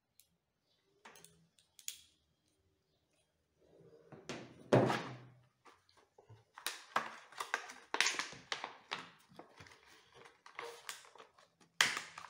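A windscreen wiper blade and its plastic packaging being handled by hand. There are a few small plastic clicks, then a knock just before five seconds in, followed by a long run of rapid crinkling and clicking from the new blade's plastic package.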